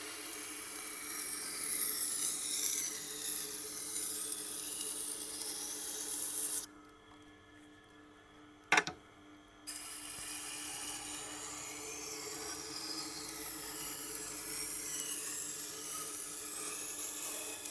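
A Victorinox knife blade being ground on a motorised sharpening wheel at 320 grit: a steady scraping over the hum of the running machine. About seven seconds in, the blade comes off the wheel for about three seconds, leaving only the hum and a single sharp click, then the grinding resumes.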